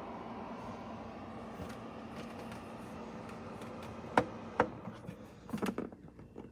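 Electric fireplace heater's fan blowing warm air with a steady rush. About four seconds in come two sharp clicks, then a short cluster of clicks and knocks, and the blowing stops right at the end.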